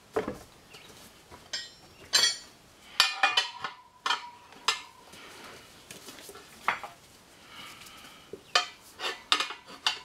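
Steel tire irons clinking and scraping against a motorcycle's spoked wheel rim as the old tire is levered off the rim. Irregular sharp metallic clinks, one ringing briefly, with softer rubbing between them.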